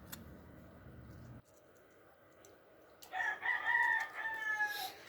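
A rooster crowing once, a single drawn-out call of nearly two seconds that drops in pitch at the end. Earlier, a low steady hum cuts off suddenly.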